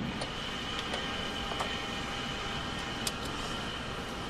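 Steady machine-like background noise with a faint high-pitched whine held throughout and a few light ticks.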